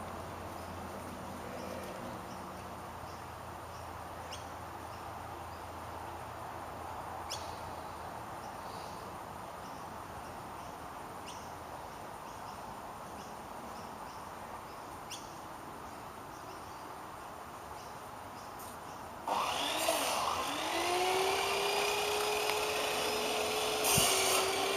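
Faint steady background noise with a few light clicks. About 19 seconds in, a cordless power driver starts: its motor whirs up and runs steadily to near the end, driving screws to close up the lamp housing.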